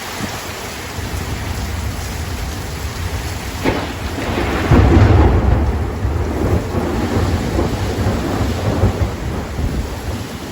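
Thunderstorm: heavy rain falling steadily, with a sharp crack of thunder about a third of the way in, then a loud rumble that swells about halfway through and slowly dies away.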